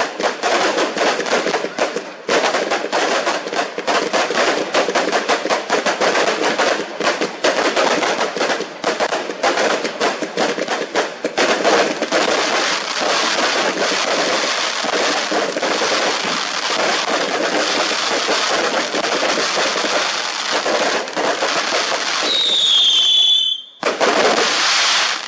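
Fireworks going off in a dense barrage: rapid, overlapping crackles and bangs with no break. Near the end a whistling firework sounds for about a second, then a brief lull and more crackling.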